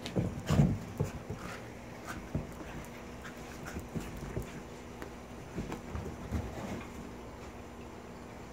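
Miniature schnauzer and kitten play-wrestling: irregular scuffles and thumps of the two bodies, loudest about half a second in, with the dog panting.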